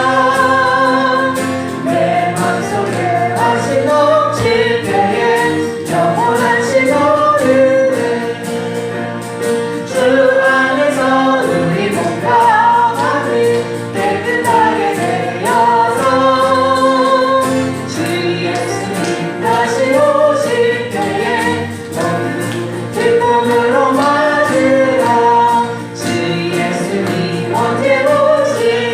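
Congregation singing a gospel hymn in Korean as a group, over sustained chords that change about every two seconds.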